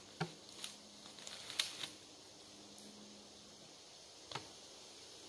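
A handful of short, sharp wooden knocks and snaps from cut log rounds and brush being handled. They are scattered through the quiet, with the loudest about a second and a half in and a last single knock near the end.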